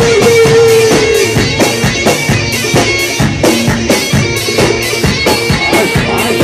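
Live rock band playing an instrumental passage: electric guitar and drum kit, with a long held note that slides down in pitch about a second in, over a steady beat of about three to four drum hits a second.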